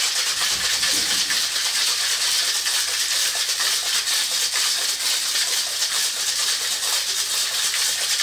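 Ice rattling hard inside a metal cocktail shaker, shaken vigorously and evenly. This is the ice shake of a reverse dry shake, chilling and diluting a whiskey sour with egg white.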